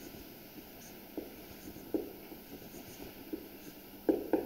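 Marker pen writing on a whiteboard: faint, short strokes spaced out, with two louder taps just after four seconds.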